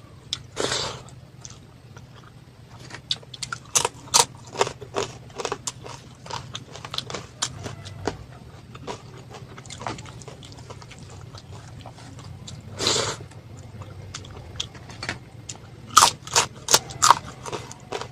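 Close-miked eating sounds: a person chewing a rice-and-dal meal, irregular wet clicks and mouth smacks, with a longer noisy burst about 13 seconds in and a cluster of louder smacks near the end. A faint steady low hum runs underneath.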